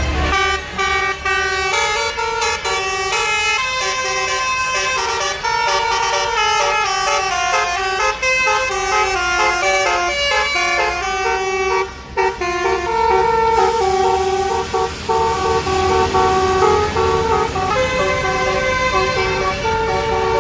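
Bus basuri horn with roof-mounted trumpets, playing a fast melody of stepping notes, several tones sounding at once. There is a brief break about twelve seconds in.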